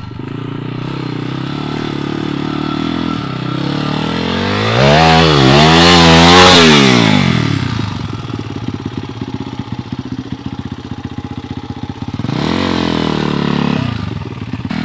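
Small pit bike engine revving hard under load on a hill climb, its pitch swinging up and down several times, loudest about halfway through. It then drops back to low, uneven revs and picks up again near the end.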